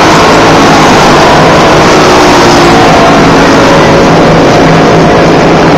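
Several dirt-track racing kart engines running hard together, loud, their overlapping pitches shifting as the karts race around the oval.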